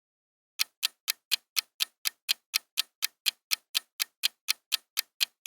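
Clock-ticking sound effect counting down the time to guess: sharp, evenly spaced ticks, about four a second, starting about half a second in.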